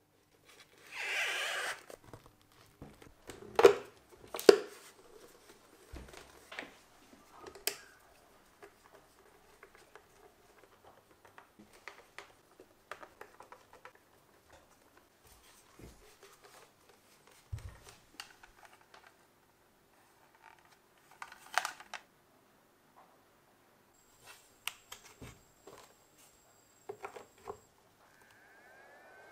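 Hard plastic e-bike battery case being assembled by hand. A scraping slide about a second in, then two sharp clicks, followed by scattered small clicks and knocks from the case parts, a screwdriver driving small screws, and a charging plug being seated near the end.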